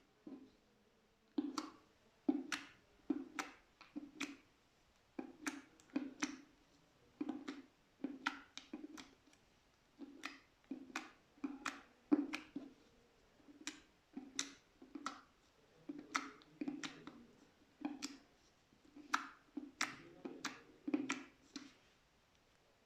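Slime being squeezed and pressed by hand, giving a run of small wet clicks and pops, about one to two a second, that stops shortly before the end.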